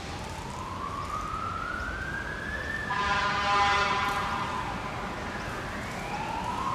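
Emergency vehicle siren wailing, its pitch climbing slowly for about three seconds, dropping, then climbing again. About three seconds in, a steady, many-toned sound like a horn plays over it for about a second and a half.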